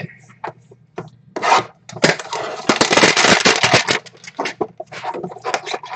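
Cardboard trading-card box being handled and opened: rubbing and scraping of cardboard and wrapping. A dense run of crackly rustling falls about two to four seconds in, with scattered light clicks and scrapes before and after it.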